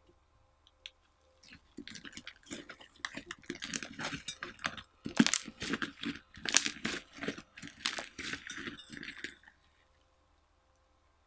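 Slime being mixed and squeezed by hand: a dense run of quick, wet clicks and crackles, starting about a second and a half in and stopping about two seconds before the end.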